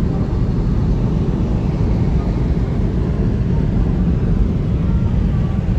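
Car driving at highway speed: a steady, loud low rumble of road and wind noise.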